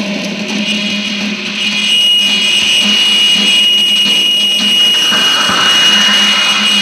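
Electronic noise drone with a low hum, from a small knob-worked electronic sound box. About two seconds in, a steady high-pitched tone enters and holds, and the drone grows louder.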